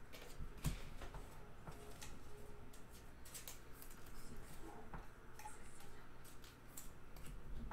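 Basketball trading cards being leafed through by hand, card stock sliding and snapping softly against card in scattered light clicks and brief scrapes.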